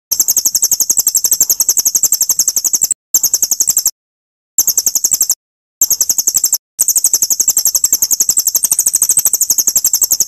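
A small songbird's rapid, very high-pitched trill of about a dozen even notes a second. It comes in five bursts with short breaks, the first and last lasting about three seconds each.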